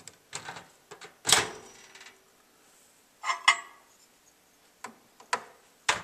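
Microwave oven door opened with a latch clunk about a second in, then a few clicks and knocks as the incandescent light bulb is handled and lifted out.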